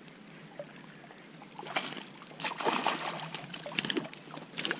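Irregular water splashing starting about two seconds in, after a quiet hiss: a hooked smallmouth bass thrashing at the surface as it is landed.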